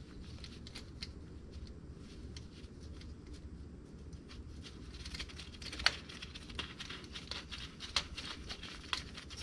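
Faint rustling of nitrile-gloved hands and small metal clicks as the positive cable terminal is worked onto a car starter's solenoid stud, with a sharper click about six seconds in and another about eight seconds in.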